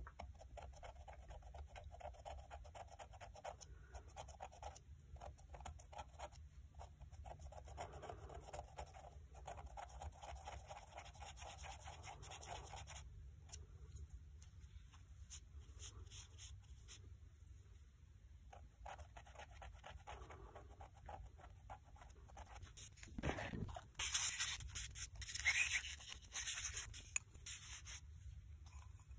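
Faint scratching and rubbing as a thin stick is worked along a crack on the unglazed base of a ceramic bowl during kintsugi repair. About 23 seconds in there is a soft bump as the bowl is handled, then louder rubbing as the bowl is wiped with a wad of cotton.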